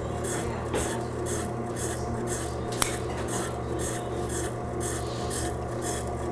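Motor of an AquaHone Stylist II scissor sharpener humming while a clipper-blade comb is ground against its turning wheel, giving a rhythmic rasp about two to three times a second. A single sharp click about three seconds in.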